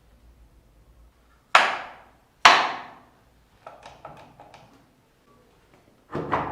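Knocks on wood during woodworking: two loud, sharp knocks about a second apart, then a run of lighter taps, and more knocks near the end.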